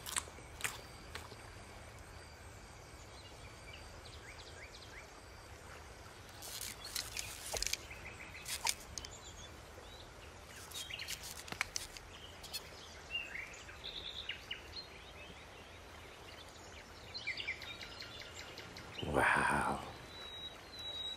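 Quiet outdoor evening ambience with faint bird chirps and scattered small clicks, a couple of crunches at the start, and one brief louder sound about 19 seconds in.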